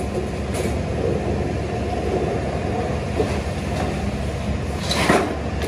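A steady low machine hum, with a brief clatter about five seconds in as aluminium drink cans are tipped from a metal scoop into a drum.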